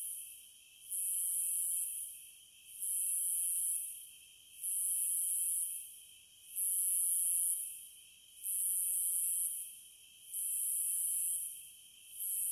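Cicadas calling: a very high buzz that comes in repeated pulses about every two seconds, each starting suddenly, lasting about a second and tapering off, over a steady, lower-pitched insect hum.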